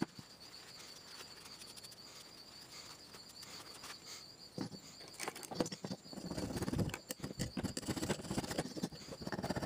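A small cast-aluminum Clinton engine part handled and worked on a bench: light clicks and taps, then denser scratchy scraping against the metal from about six seconds in. Crickets trill steadily in the background.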